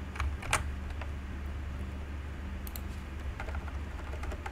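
A few scattered computer keyboard keystrokes, single clicks with gaps between them, over a steady low electrical hum.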